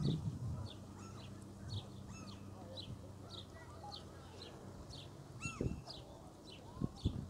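Birds calling: a steady run of short, high chirps about twice a second, with a few lower calls mixed in, over a faint steady hum.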